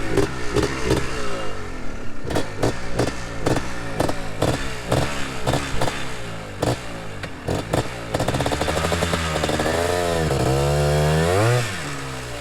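Yamaha Blaster's two-stroke single-cylinder engine running under load with repeated knocks and clatter, then revving high and wavering for a few seconds before the revs drop off sharply near the end.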